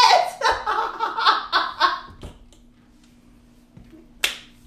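A voice for about two seconds, then a pause and a single sharp click near the end.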